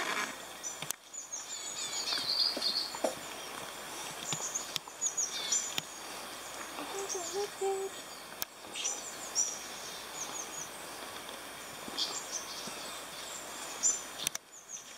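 Small birds chirping in short, high notes scattered throughout, over a steady background hiss of forest ambience.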